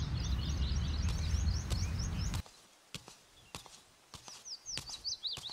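Small birds chirping, a quick run of short rising chirps. A low outdoor rumble under the first half cuts off abruptly about two and a half seconds in, leaving the chirps and a few faint ticks.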